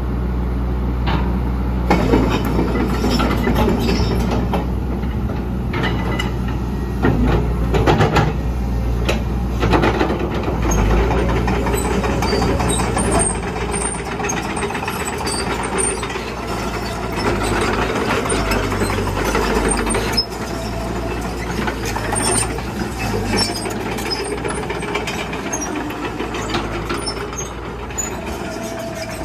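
Caterpillar 312C hydraulic excavator at work: its diesel engine runs steadily, the engine note shifting up and down several times, among repeated metallic knocks and clanks.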